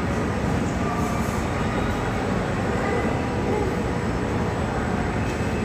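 Aircraft engine noise: a steady, loud rumble that holds even throughout.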